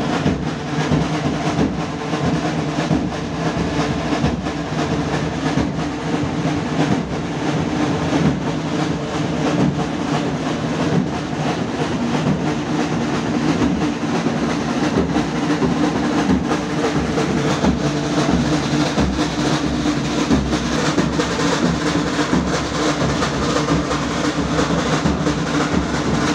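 Drums played in continuous, unbroken drumming, dense with rapid strokes and rolls: the traditional drumming that drives the dancing giganti figures.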